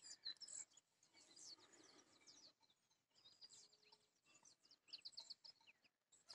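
Faint chirping of small birds: quick runs of short, high notes that bunch together at the start, a little past the middle and about five seconds in.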